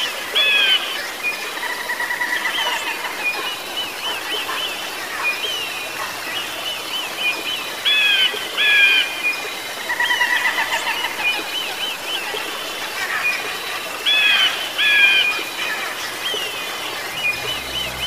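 Birds calling: short chirps, sweeping whistles and trills over a steady outdoor hiss. A loud pair of calls comes back every seven seconds or so.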